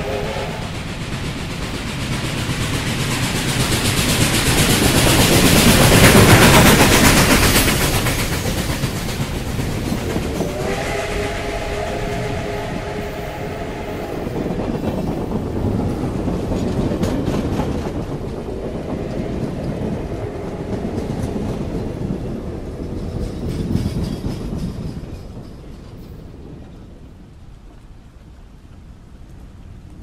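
Steam locomotive passing, its multi-note chime steam whistle sounding a chord that fades just after the start and again for about four seconds around ten seconds in. Under the whistle, the train's rumble and clatter of wheels on rail swell to their loudest about six seconds in, then fade away near the end.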